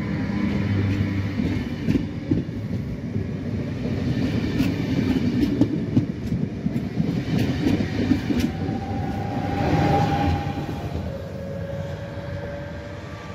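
Double-deck regional electric multiple-unit train rolling past along the platform, its wheels clicking over rail joints. A thin whine comes in about two-thirds through, and the sound fades near the end.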